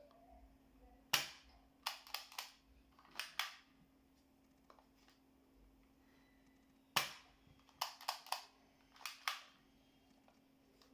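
Toy gun firing sharp, snapping shots in two strings: the first starts about a second in and the second about seven seconds in, each of about six or seven shots with short gaps. A faint steady hum runs underneath.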